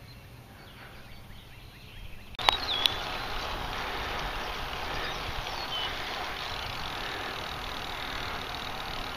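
Quiet outdoor background, then a sharp click about two and a half seconds in where the sound jumps to a steady rush of wind and road noise from riding a bicycle.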